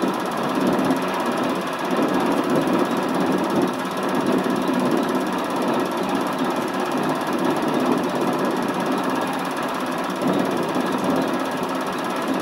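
Film projector running: a steady mechanical whirr and rapid clatter from the film transport.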